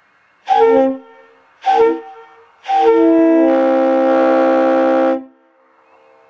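Air horn sounding a chord of several notes: two short blasts, then one long blast of about two and a half seconds, each trailing off in an echo.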